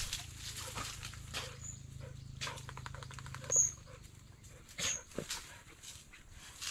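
Hunting dogs giving a few short cries, the loudest about three and a half seconds in, with some scuffling.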